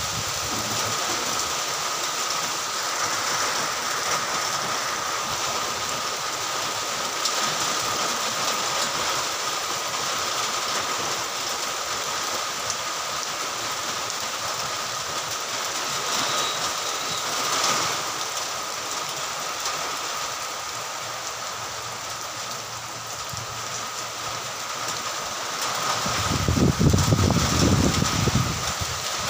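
Light rain falling steadily on leaves and plants, an even hiss of drizzle. Near the end a low rumble rises over it for a few seconds.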